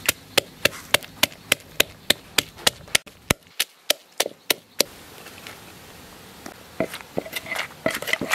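Rhythmic knocking on wood, about three strikes a second, in the way of food being pounded or chopped. The knocks stop about five seconds in and start again near the end.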